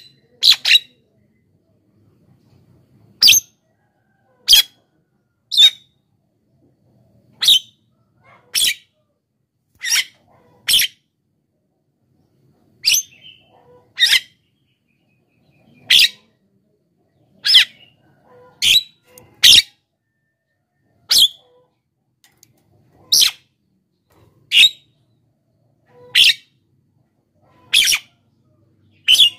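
Javan myna (jalak kebo) calling in a repeated series of short, sharp calls, one every second or two.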